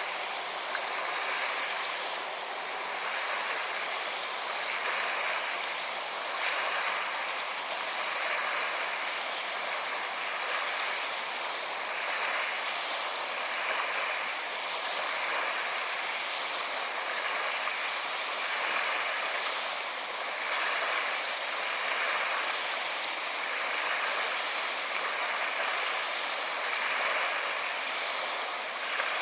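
Han River water at the riverbank: a steady rush of splashing water, swelling gently every second or two.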